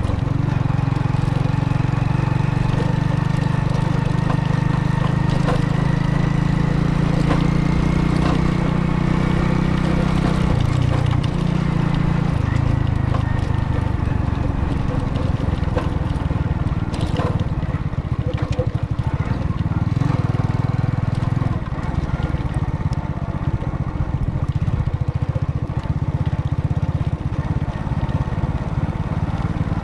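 Car engine and road noise while driving: a steady low drone whose engine pitch shifts about eleven seconds in, with a slight drop in level about twenty-one seconds in.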